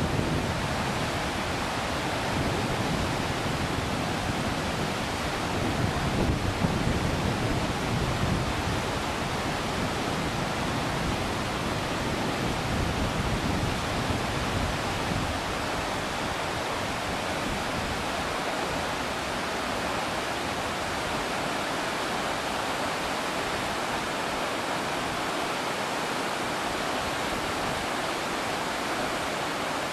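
River Tay whitewater rapids, a steady, loud rush of fast water tumbling over rocks.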